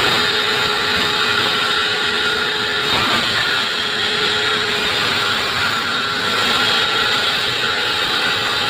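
Sawmill saw cutting acacia wood: a loud, steady mechanical whine with several held tones over a dense grinding noise. The saw is cutting through hard, heavy wood, and the uploader hears the blade sounding cracked.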